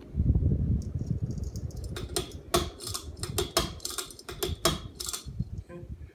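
Ceiling fan clicking and rattling: a low rumble of moving air, then a rapid, irregular run of sharp clicks and knocks from about two seconds in, three to four a second, stopping about five seconds in.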